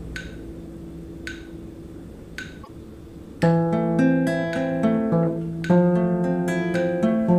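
Guitar music: a few quiet, ringing picked notes, then louder strummed and picked chords from about three and a half seconds in.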